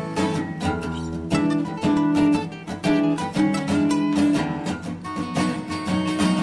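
Background music: acoustic blues played on a plucked acoustic guitar.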